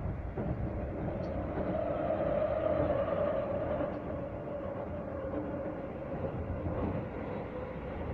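A Keisei Evening Liner electric train running at speed, heard from inside the passenger car. A steady rumble carries a pitched whine that swells about two seconds in and then settles back.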